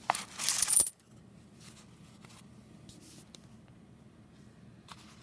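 A paper-wrapped roll of quarters broken open: a loud burst of crinkling paper and clinking coins lasting under a second. After it come only a few faint clicks.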